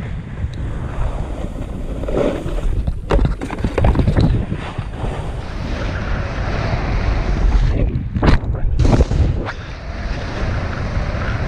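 Snowboard base and edges scraping and hissing over packed snow, with wind buffeting an action camera's microphone as a low rumble. The noise rises and falls with the rider's turns, with a few sharper scrapes.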